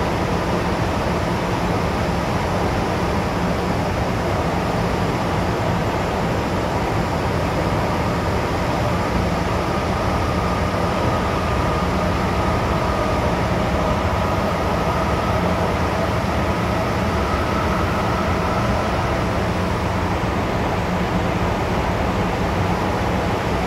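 Steady rumble and rail noise heard inside the passenger car of an MTR M-Train electric multiple unit running through a tunnel. A faint whine rises slightly from about ten seconds in and fades out near twenty seconds.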